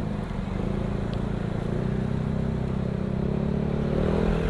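Motorcycle engine running steadily while riding, its tone rising slightly near the end.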